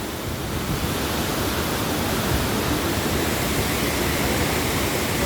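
Steady rushing of Wahkeena Falls, a waterfall pouring down: an even, unbroken roar of falling water.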